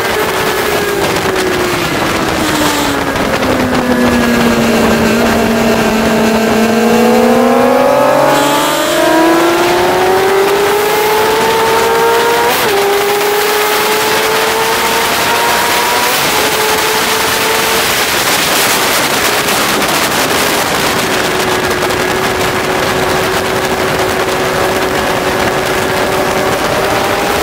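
Sport motorcycle engine at track speed over heavy wind rush. The engine note falls over the first several seconds, climbs again with a small step partway through, drops once more and holds steady for the last part.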